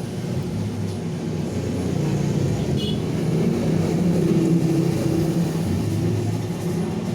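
A motor vehicle's engine running, a steady low hum that grows louder toward the middle and eases slightly near the end.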